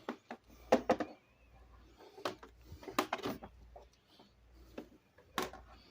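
Handling noise: about half a dozen irregular knocks and clunks, the loudest about a second in, as the unplugged Honeywell Turbo Force HF710 fan is moved and set down on a table.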